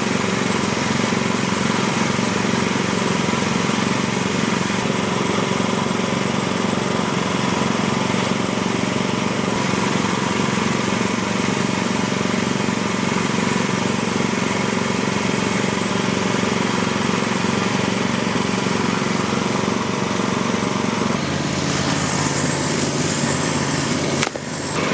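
Frontier OS35 hydraulic sawmill's engine running steadily; its note changes about three seconds before the end.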